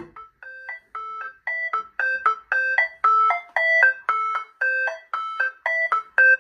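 Music: a sparse keyboard passage of short plucked-sounding notes, about two or three a second, moving among a few pitches with no bass underneath.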